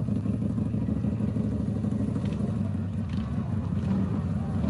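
Vehicle engines running steadily, a low even drone.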